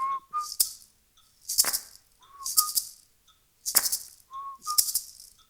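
Maracas shaking in a steady rhythm with sharp hand claps, while a short two-note whistled phrase, the second note a little higher, repeats about every two seconds.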